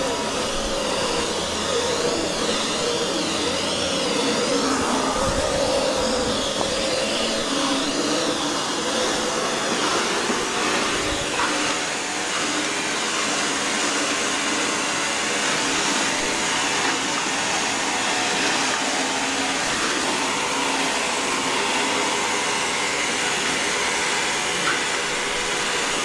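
ECOVACS DEEBOT N79 robot vacuum cleaning in auto mode: a steady whir of its suction fan and brushes, with a few faint clicks.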